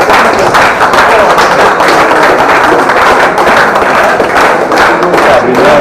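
Spectators applauding, with a few voices among the crowd.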